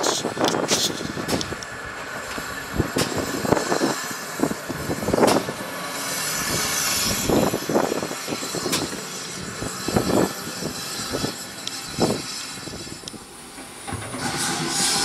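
A GWR 57xx-class pannier tank steam locomotive moving slowly past, with irregular knocks and clanks from its wheels and motion over the track and a hiss in the middle of the pass.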